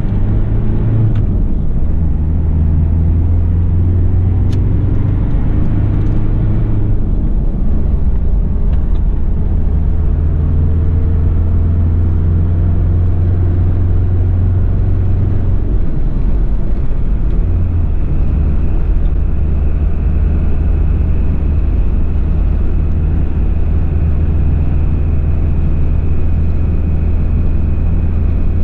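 Cabin sound of a Toyota Land Cruiser Prado LJ78 turbo diesel cruising on the highway: a steady low engine drone under road and wind noise. A faint, steady high whistle comes in about two-thirds of the way through.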